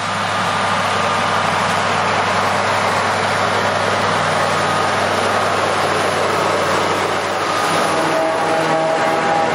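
Scania V8 diesel engine in a Steiger Cougar tractor running steadily under load while pulling a cultivator, heard close up from beside the engine bay.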